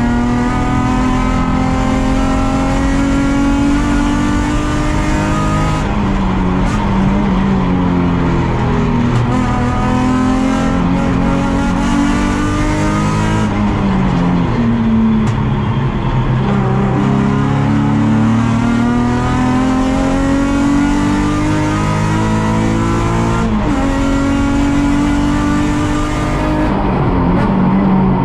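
Nissan 350Z race car's 3.5-litre V6, heard from inside the car at racing speed. The engine note climbs under acceleration and falls away sharply several times through the lap.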